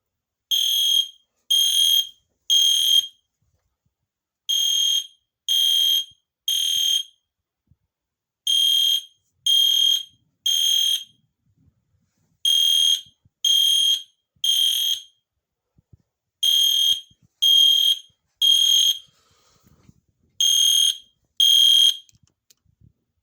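Weatherproof EST Genesis horn strobe's horn sounding in the temporal-three fire evacuation pattern: groups of three short, shrill beeps with a pause between groups. The last group stops after two beeps.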